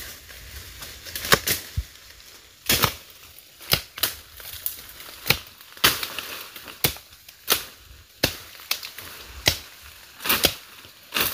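Wood being chopped with a blade: about a dozen sharp chops, roughly one a second at uneven spacing.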